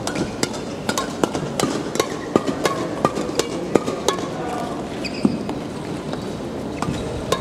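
Irregular, sharp smacks of rackets hitting shuttlecocks, several a second, from badminton play in a large sports hall.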